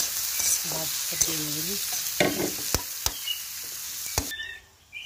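Sliced onions sizzling as they fry in oil in a karahi, stirred with a metal spatula that clicks against the pan a few times. The sizzle cuts off abruptly near the end.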